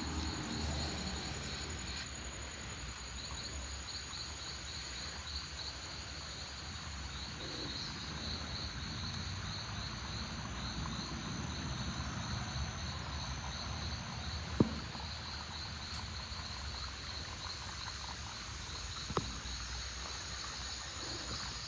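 Steady chorus of calling insects in a tropical garden: a continuous high buzz over a fast, pulsing chirp. Two brief sharp clicks sound, one past the middle and one near the end.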